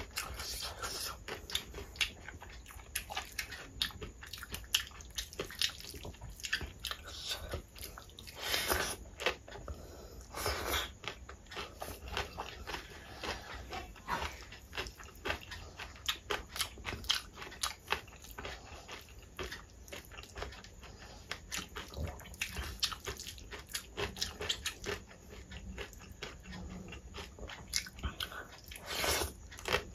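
A person chewing and biting mouthfuls of rice and dal mixed with crispy shredded potato fry, with many small crunches and wet mouth clicks. Fingers mixing the food on a steel plate add a few louder squelching swells.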